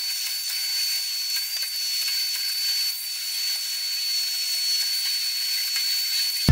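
Steady hiss with a thin, high, steady whine running through it.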